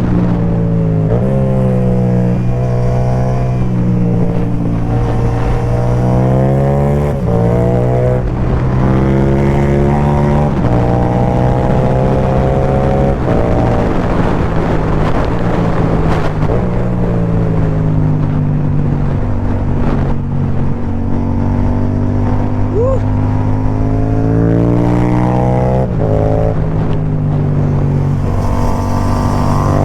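Yamaha MT-07's 689 cc parallel-twin engine through an Akrapovic carbon low-mount exhaust with the dB killer removed, pulling hard through the gears. The pitch climbs and then drops at each gearchange, again and again, with short steady stretches between.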